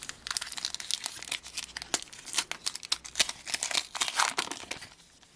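Crinkly plastic trading-card packet being torn open and its wrapper crumpled in the hands: a dense run of irregular crackles that dies away near the end.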